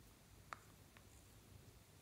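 Near silence, with a small metal spatula giving one faint click against a plastic toy container about half a second in, and a fainter tick about a second in.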